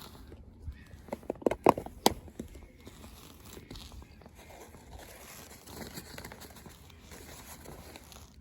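Handling noise: crinkling and rustling, with a quick run of sharp knocks or clicks about one to two seconds in.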